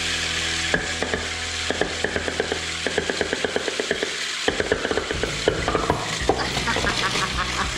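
Grrrumball remote-control toy spinning on a hardwood floor, its plastic body and arms clattering rapidly against the floor and the cardboard box, several clicks a second over a low hum.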